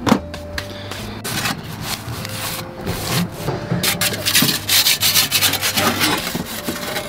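Metal pizza peel scraping and rubbing on the stone floor of a small pizza oven as it slides under the pizza: a run of irregular rasping strokes, busiest in the second half.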